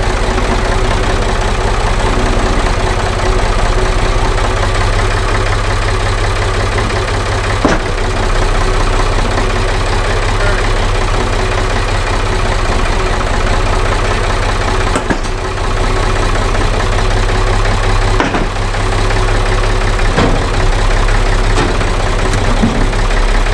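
Tractor engine running steadily while the front-end loader tips sawdust out of its raised bucket, with a handful of sharp knocks along the way.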